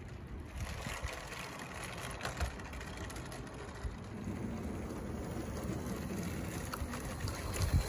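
A 16mm-scale garden-railway train, a PDF Models Ernie locomotive with slate wagons, running on the track: a faint rattle of wheels and motor, with a low rumble that grows louder from about halfway as the train approaches. There is a single knock just before the end.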